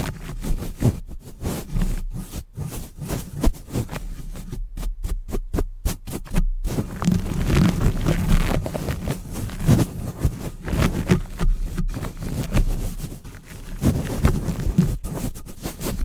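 Fast ASMR trigger sounds made close to the microphone: quick separate taps and clicks, turning about seven seconds in into a denser, continuous scratching and rubbing texture.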